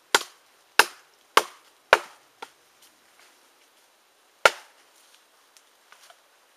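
Cold Steel Gurkha Kukri of SK-5 carbon steel chopping into a small log: four quick, sharp chops about half a second apart, a lighter one, then after a pause one more hard chop.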